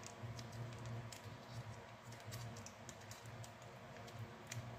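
Faint, scattered light clicks and crinkles of a small plastic sachet being squeezed out over a stone mortar, with a low steady hum underneath.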